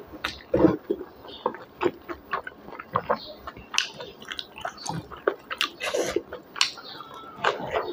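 Close-miked chewing of a mouthful of rice and beef innards curry, with wet mouth smacks and many short, sharp clicks at an irregular pace.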